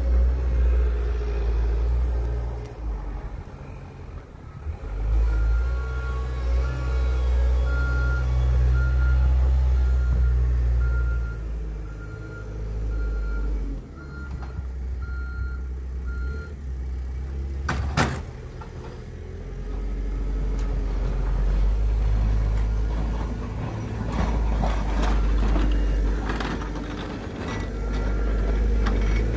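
Caterpillar 906H compact wheel loader's diesel engine running steadily while it maneuvers with a snow pusher. From about five seconds in until just past the middle, its backup alarm beeps evenly, roughly one beep every 0.8 seconds. A single sharp click comes a little after the beeping stops.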